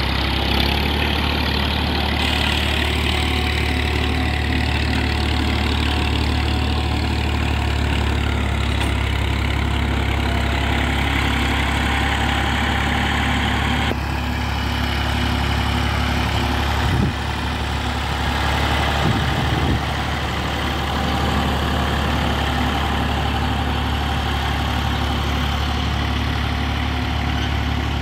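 Massey Ferguson 240 tractor's three-cylinder Perkins diesel running at a steady speed while towing a leveller across tilled soil. A couple of brief knocks come a little past halfway.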